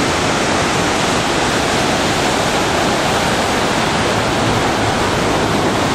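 Heavy white water rushing steadily: the twin falls of Latefoss, swollen and intense, and the whitewater rapids of the river below them.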